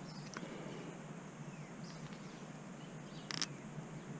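Faint clicks of a hex key and bolt against the Bafang mid-drive motor's casing as a cover bolt is fitted, with a short rattle about three seconds in, over a steady low hum.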